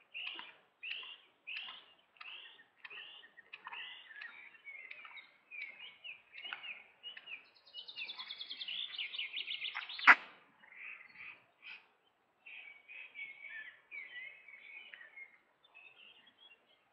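Songbirds calling: short, falling chirps repeated about twice a second, then a fast trill, then more warbled notes. A single sharp click just after ten seconds is the loudest sound.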